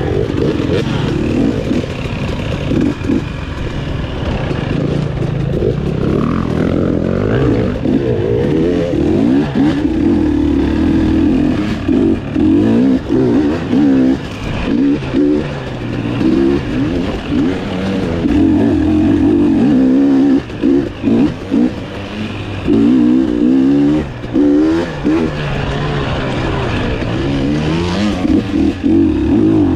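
Dirt bike engine revving up and down continuously as the throttle is worked through the trail, with several short, sharp drops in loudness about two-thirds of the way through where the throttle is snapped shut and reopened.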